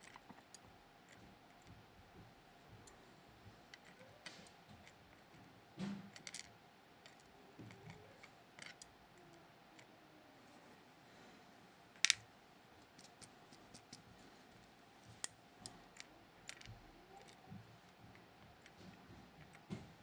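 Scattered light clicks and taps of small metal lock parts and tools being handled, with a soft knock about six seconds in and a sharper click about twelve seconds in.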